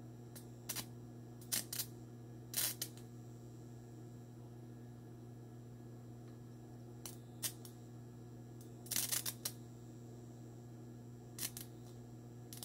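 Steady electrical hum from a bench-powered RF power amplifier rig, with short, sharp clicks and crackles at irregular intervals, some in quick clusters of two or three.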